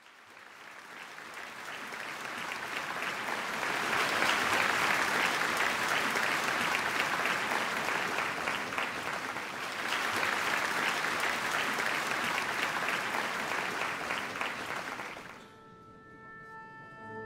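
Audience applause that swells in from the start, holds steady for about fifteen seconds and then dies away. Near the end an orchestra begins playing, with long held notes.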